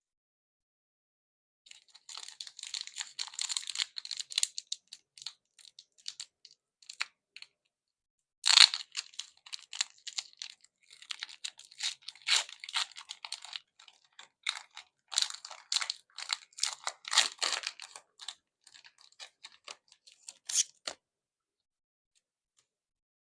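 Foil wrapper of a Pokémon trading card booster pack crinkling and tearing as it is handled and opened, a steady run of irregular crackles and clicks with one sharp, louder rip about eight seconds in.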